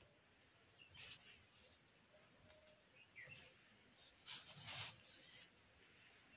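Ballpoint pen scratching over ruled notebook paper in short, faint strokes, the loudest about four to five and a half seconds in.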